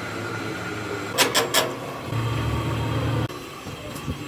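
Drill press motor running while a twist drill bit cuts into a steel axle shaft beside its welded crack, with a few sharp metallic strokes about a second in. A louder low hum comes in about two seconds in and cuts off suddenly a little after three seconds.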